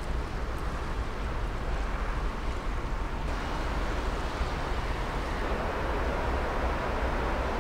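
Steady low rumble and hiss of wind buffeting the microphone, with no distinct events.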